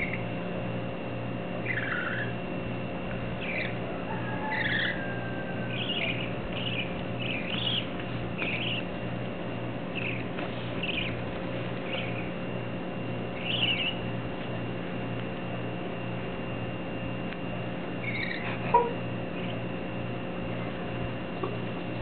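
Baby budgies chirping on and off in short, high calls over a steady low hum. A single sharp tap comes late on.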